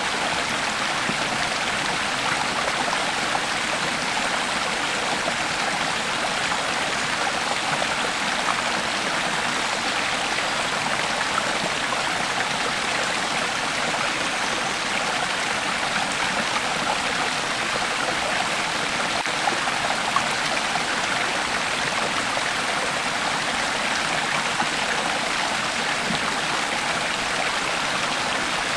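Creek water flowing and babbling over stones, a steady rushing splash with no pauses.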